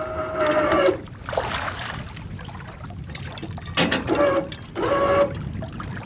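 SEA PRO electric anchor winch motor running with a steady whine, hauling in the anchor rope: about a second at the start, then two short bursts a second apart near the end.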